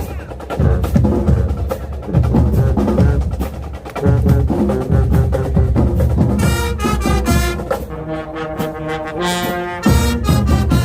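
High school marching band playing: drums lead with steady heavy hits, then the brass section comes in about six seconds in with loud, short punched chords.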